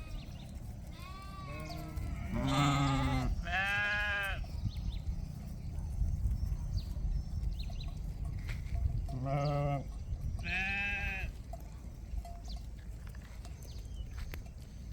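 Sheep bleating: about five wavering calls, three close together in the first few seconds and two more past the middle, over a steady low rumble.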